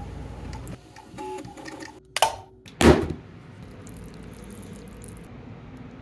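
3D printer running, its motors humming with changing tones as the print head moves. About two seconds in come two short, loud, sharp sounds half a second apart, and the printer then settles into a steadier, quieter hum.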